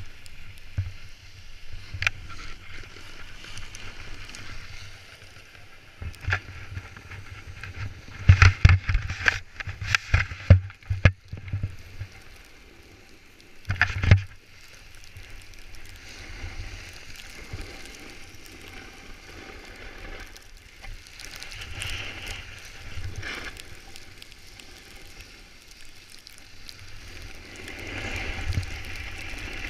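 Snowboard sliding and scraping over packed snow, with wind on the microphone. A cluster of sharp knocks and clatter about eight to eleven seconds in, and another loud knock about fourteen seconds in.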